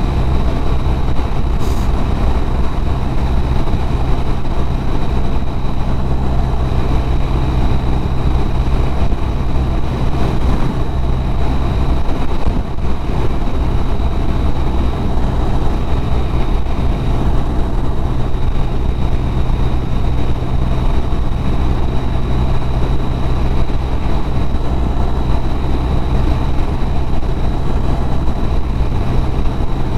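BMW R1200RT flat-twin boxer motorcycle cruising steadily at about 70 mph: a constant low engine drone under heavy wind and road noise, with a thin steady high whine over it.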